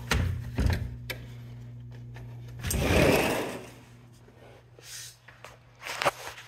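Steady low electric motor hum, with a few short clicks and knocks. A brief rush of noise about three seconds in is the loudest part, and the hum is fainter after it.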